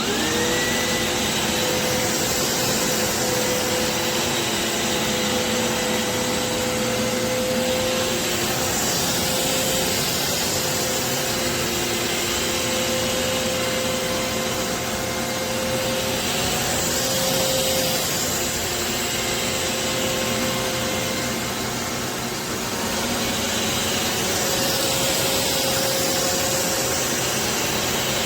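BISSELL Revolution HydroSteam Pet carpet shampooer switched on: its suction motor spins up with a briefly rising whine, then runs loud and steady with a steady hum-whine.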